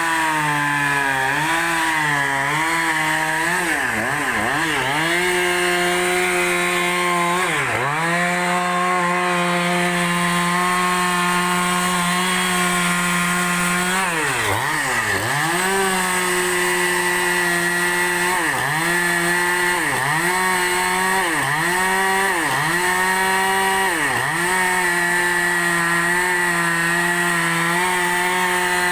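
Two-stroke chainsaw ripping a large log lengthwise at high revs. Its engine note dips briefly under load about a dozen times, most deeply about eight and fifteen seconds in.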